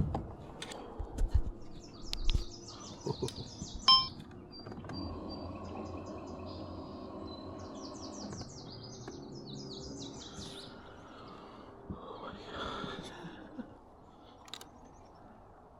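Birds singing: two rapid runs of high chirps over a steady background hiss, with a few sharp knocks in the first few seconds.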